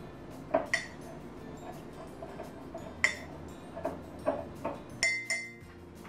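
Metal teaspoon clinking against a glass mug while pressing a coffee tea bag to squeeze out the extract: about eight light, irregular clinks, the ones about five seconds in ringing on briefly.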